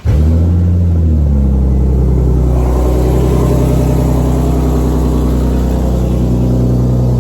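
Car engine catching on a cold start, its revs flaring briefly in the first second, then settling into a steady, loud idle through a newly refitted exhaust that the owner says still has a leak.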